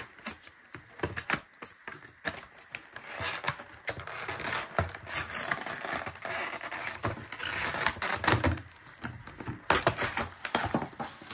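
A cardboard card box being torn open and pulled apart by hand: irregular tearing, rustling and scraping of cardboard and paper, with sharp clicks and knocks throughout.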